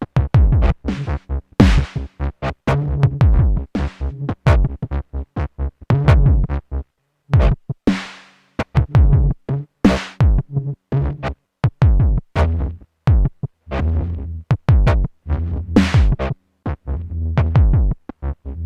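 Electronic drum pattern from an Endorphin.es Queen of Pentacles module: rapid sharp hits, many dropping quickly in pitch, over held low synth bass notes, with a brief break about halfway through.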